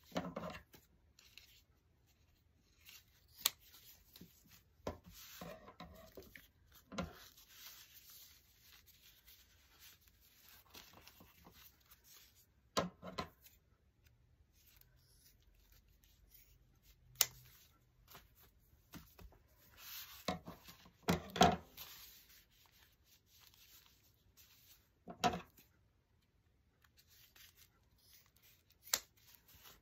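Thin plastic tablecloth rustling and crinkling as it is folded and handled, with occasional sharp snips of scissors cutting through the folded layers. The sounds come in short separate bursts with quiet between them.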